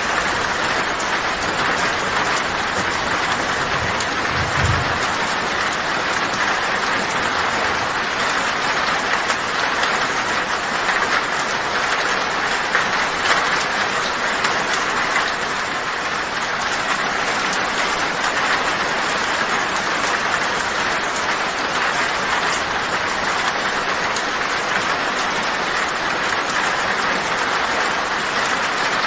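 Heavy rain drumming steadily on a tin (corrugated metal) roof, a dense patter of countless drops. A brief low thud comes about four and a half seconds in.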